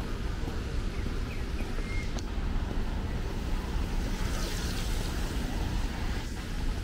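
Steady city street noise of traffic running on a wet road, with a swell of tyre hiss around the middle.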